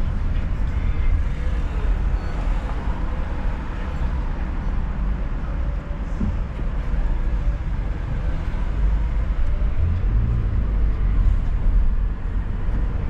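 Steady low rumble of a car driving, with road and engine noise and no sharp bangs.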